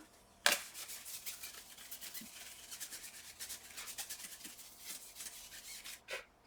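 Rapid rubbing strokes of wiping a laptop part clean, starting with a sharp tap about half a second in and stopping shortly before the end.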